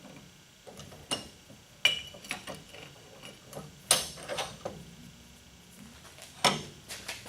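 Sharp metal clinks and knocks at irregular intervals as a piece of angle iron and a washer are set against each other and clamped in a bench vise, with a small cluster of knocks about four seconds in.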